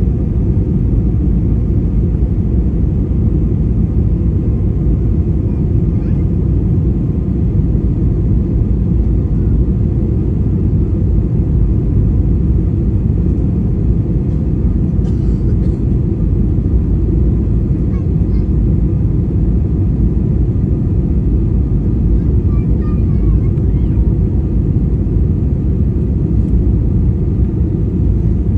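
Airliner cabin noise during the landing: a steady low rumble of engines and airflow that holds even throughout.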